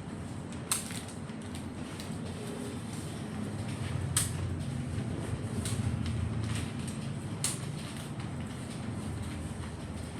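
Quick-release parabolic softbox being opened out and handled: creaking with three sharp clicks, over a steady low rumble.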